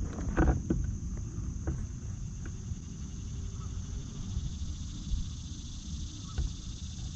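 Steady high-pitched chorus of insects over a low rumble of wind on the microphone, with a few faint clicks.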